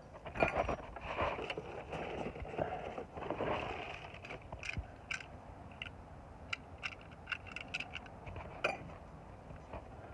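Metal hardware being rummaged through by hand: scraping and rustling for the first few seconds, then a run of small, sharp metallic clinks of keys and lock parts knocking together.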